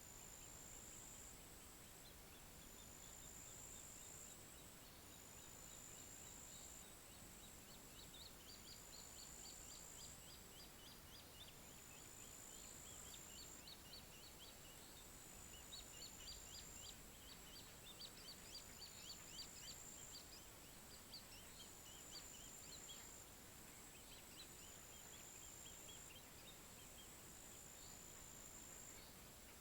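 Faint natural pond ambience: a high insect buzz that pulses steadily about once a second, with quick series of short high chirps through the middle.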